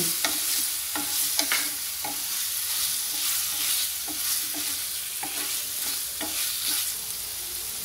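Chopped onions sizzling in hot oil in a non-stick kadai, with a wooden spatula stirring and scraping them around the pan in short repeated strokes over a steady hiss.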